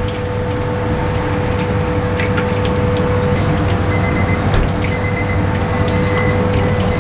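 Battered dory fish pieces going into a wok of hot oil and sizzling, with a few crackles, over a steady low rumble. Short high beeps repeat from about four seconds in.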